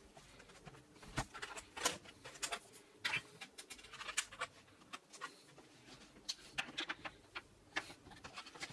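Fingers handling the underside of an HP ZBook 17 G4 laptop: irregular light clicks, taps and scrapes on the casing, a few each second.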